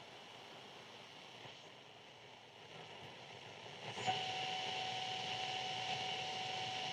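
Radio tuning static: a faint hiss between stations, which grows louder about four seconds in, joined by a steady high whistling tone that holds to the end.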